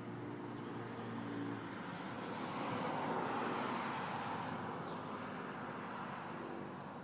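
A road vehicle passing by: a rushing tyre-and-engine noise that swells to a peak about three to four seconds in and then fades away.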